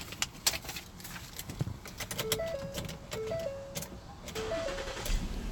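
Handling clicks and knocks, then a car's electronic warning chime: a short three-note tone pattern repeating about once a second, heard four times. A low rumble comes in near the end.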